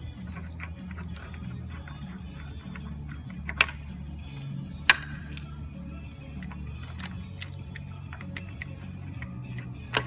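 Background music, with scattered sharp metal clicks and taps from bottom bracket bearing cups and a threaded press tool being handled and fitted. The loudest clicks come a little before and around halfway.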